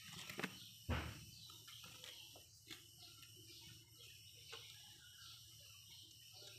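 Kittens play-fighting on carpet: one sharp thump about a second in, then a few soft taps and scuffles over a faint steady hiss.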